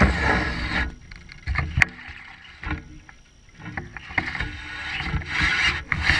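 A cast with a baitcasting reel: line runs off the spool in a rush of noise at the start. Then come handling and reeling sounds from the reel, with a sharp click about two seconds in.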